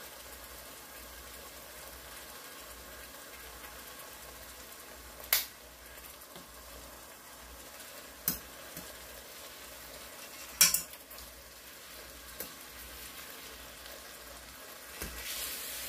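Chicken breasts sizzling steadily in hot oil in an enamel pot. A fork clicks sharply against the pot three times as the pieces are turned, about a third of the way in, around halfway and about two-thirds in.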